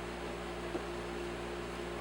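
Steady background hiss and hum with a faint steady tone, and one faint click about three-quarters of a second in.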